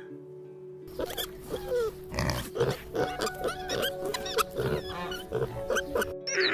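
Pigs grunting and squealing in a dense, irregular run over steady background music. The calls start about a second in and stop shortly before the end.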